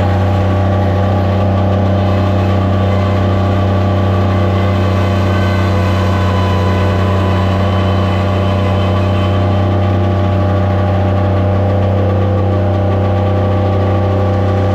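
Skid steer loader's engine running at a steady speed with a strong, low, even drone.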